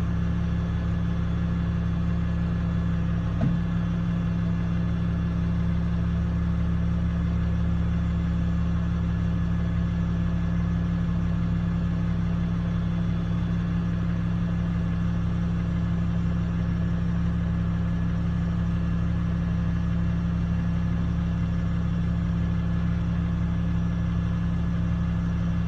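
Heavy-equipment diesel engine running at a steady, unchanging speed, a constant low drone, with a single short knock about three and a half seconds in.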